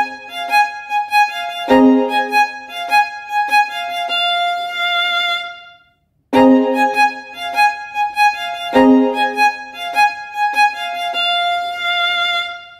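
Instrumental background music: a short, bright melodic tune of quick notes played twice, with a brief silence about six seconds in between the two plays.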